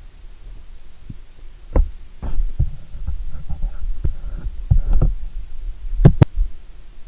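Irregular soft low thumps and knocks, with a louder double knock about six seconds in.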